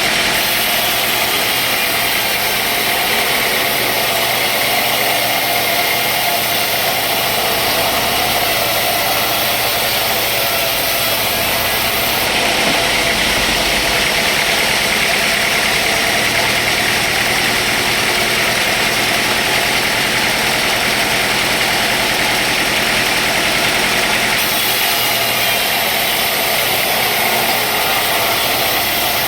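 Sawmill machinery running steadily: a continuous motor drone under a loud hiss, changing in tone abruptly about twelve and again about twenty-four seconds in.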